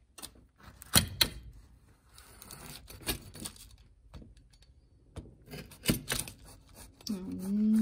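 Pizza-cutter wheel rolling through a baked almond biscotti loaf on a parchment-lined baking sheet, crunching through the crust with several sharp clicks, about a second in, around three seconds and near six seconds. A woman's voice starts near the end.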